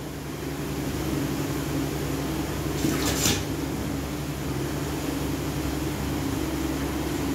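Two quick scrapes from setting floor tiles in mortar, about three seconds in, over a steady low mechanical hum.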